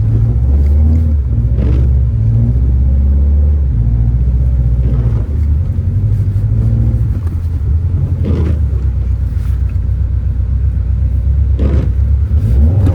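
Subaru WRX engine running as the car drives through snow, a steady low rumble that swells and eases a few times.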